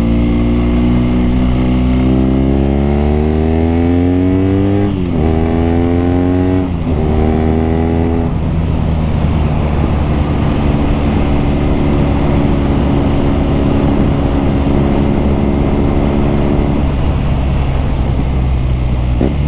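BMW R nineT's air/oil-cooled boxer twin accelerating hard, with its exhaust note rising and then dropping sharply at two quick upshifts about five and seven seconds in. The engine then settles into a steady cruise.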